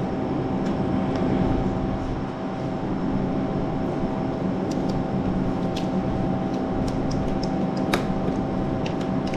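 Steady mechanical hum of kitchen machinery, an even noise carrying several steady tones. A few faint light clicks come from the spatula touching the steel mixing bowl as the batter is poured and scraped out.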